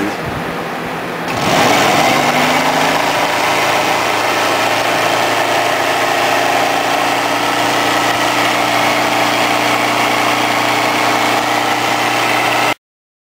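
Forklift DC traction motor coupled to a truck transmission, running on a bench test: it speeds up about a second in, then runs steadily with a whine and hum, and stops abruptly near the end.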